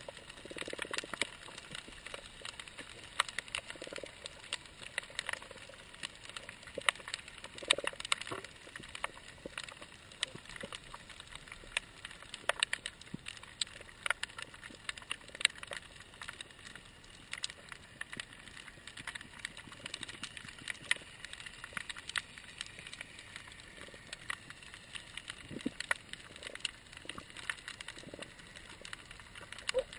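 Underwater reef crackle: a dense, irregular stream of sharp clicks and pops, the sound typical of snapping shrimp, with a few low muffled thumps here and there.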